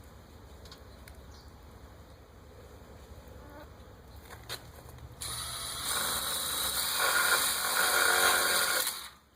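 Cordless power driver running a screw in to fasten a gate latch finger to a metal latch pole. It starts a little past halfway, gets louder in two steps as the screw tightens, then stops abruptly just before the end.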